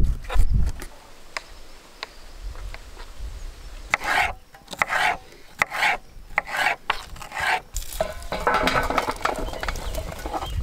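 A knife slicing bell peppers on a wooden cutting board: a few low knocks at the start, then rasping cutting strokes about one a second. Near the end, sliced pepper strips rustle as they are tossed by hand in a steel bowl.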